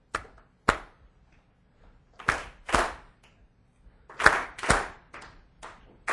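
Hand clapping in a slow rhythm of pairs about half a second apart: one person's single claps at first, then fuller claps as a group claps along, loudest about four seconds in.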